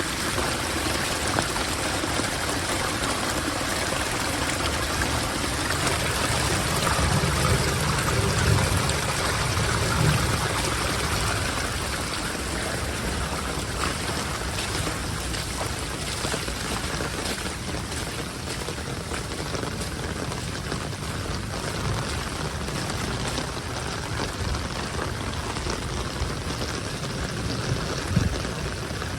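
Floodwater pouring and running in a steady rush, briefly louder with a low rumble about seven to ten seconds in.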